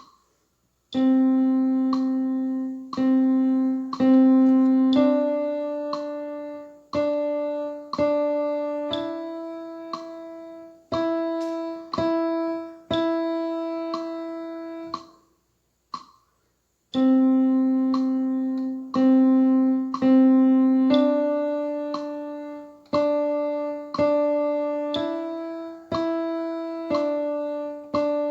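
A keyboard playing a simple melody on middle C, D and E in short and long notes, starting about a second in after a click on the beat. About halfway through the notes stop for nearly two seconds, a rest, with one click in it, then the tune picks up again.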